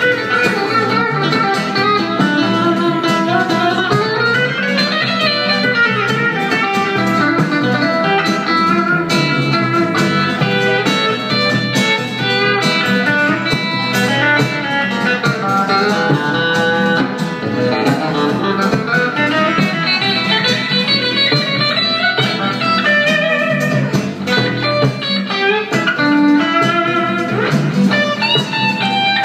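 Live blues band playing an instrumental passage: guitar lead lines that bend and slide up and down over acoustic guitar rhythm and a stand-up bass.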